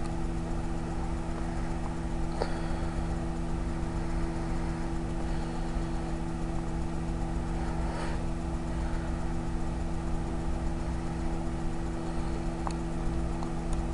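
Hamilton Beach microwave oven running on high, a steady electrical hum, with a faint tick or two.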